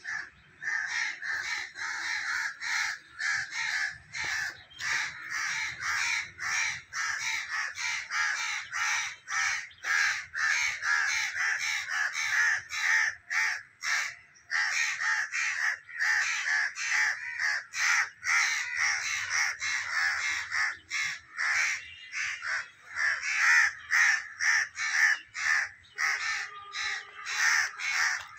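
A flock of birds calling harshly and without pause, many short calls overlapping at several a second.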